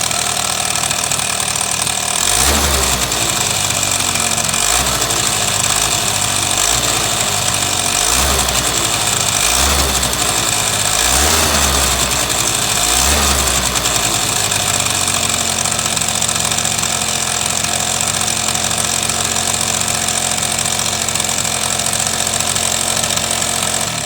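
Suzuki Sepia ZZ's 50cc two-stroke scooter engine idling, then blipped about six times in a row with the throttle, each rev rising and falling back, before settling into a steady idle again. The engine is making an abnormal noise.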